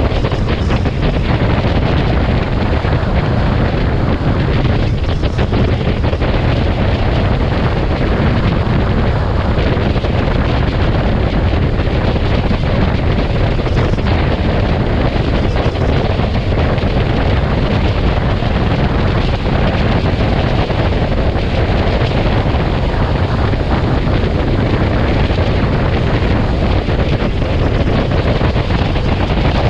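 Steady heavy wind noise on the microphone of a camera riding at highway speed, mixed with a low road and vehicle rumble.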